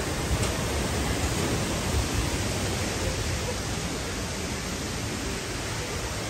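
Steady rushing of a mountain stream cascading down a rocky valley, an even hiss with no break.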